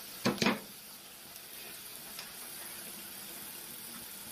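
Saucepan of pasta boiling on the stove with a steady hiss, and two brief sharp sounds about a quarter and half a second in.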